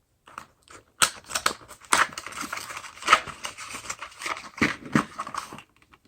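Handling noise of 9mm hollow-point cartridges and their box being picked up and shifted: a dense run of small clicks and rattles with a few sharper knocks, starting about a second in and stopping shortly before the end.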